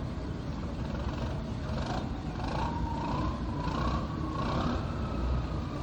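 Towboat engine running with a steady low rumble, joined about two and a half seconds in by a high whine that rises slightly in pitch and holds.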